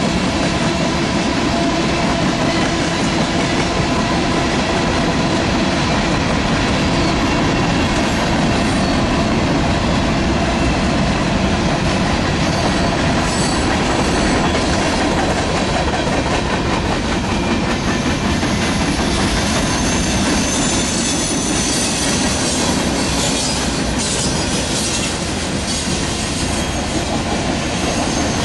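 Freight cars of a long Norfolk Southern mixed freight train rolling past close by: tank cars, covered hoppers and boxcars. Their wheels make a steady rumble and clatter on the rail, and a high wheel squeal comes in over the second half.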